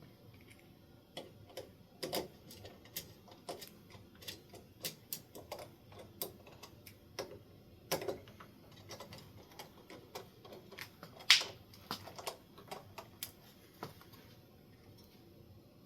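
Scattered sharp clicks and light metal taps, about two a second, from hand tools and hardware at a ceiling fan mounting bracket, with one louder knock about eleven seconds in.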